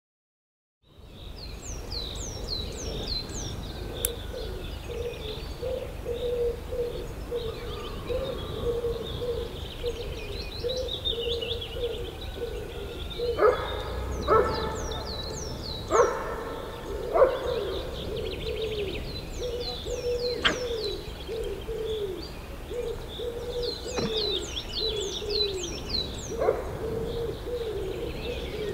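Birdsong chorus fading in after about a second of silence: many small birds chirping and trilling, with a lower call repeated steadily underneath. A handful of sharp knocks come about halfway through.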